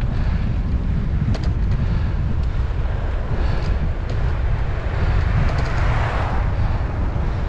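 Wind buffeting a helmet-mounted GoPro's microphone while riding a bicycle, a steady low rumble with a few light clicks, and a hiss that swells and fades about six seconds in.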